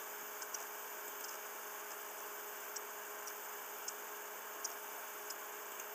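Steady, faint hiss of an open microphone, with about eight faint, sharp computer-mouse clicks scattered through it.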